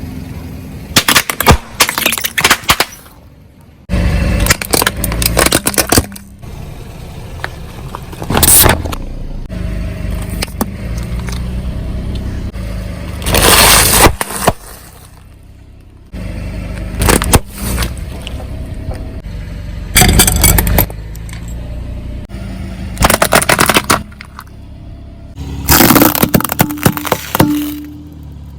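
Car tyres rolling over and crushing objects: a series of loud crunching, cracking bursts every few seconds over the low rumble of the car.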